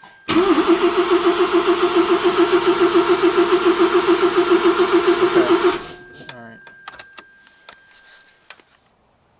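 Starter cranking the 1985 Mazda RX-7 GSL-SE's 13B rotary engine for about five and a half seconds with a fast, even pulsing beat. The engine does not catch, and the cranking cuts off abruptly.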